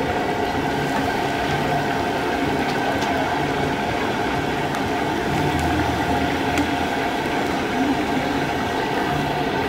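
Chicken pieces deep-frying in a large steel kadai of hot oil over a gas burner, a steady, unbroken sizzle of bubbling oil, with a metal skimmer stirring through it.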